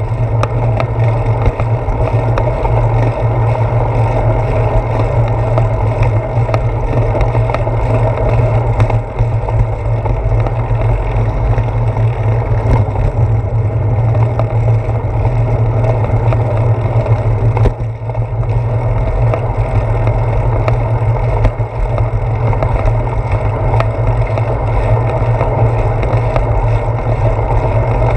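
Steady wind noise and road rumble from riding a bicycle, picked up by a handlebar-mounted GoPro Hero 4 action camera: a constant loud low drone, dipping briefly a couple of times.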